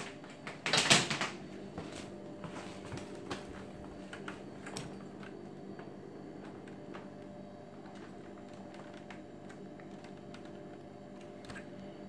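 Kenmore Progressive upright vacuum cleaner being handled while switched off: a loud clatter about a second in, then scattered plastic clicks and knocks as its power cord is unwound from the handle. A steady low hum runs underneath.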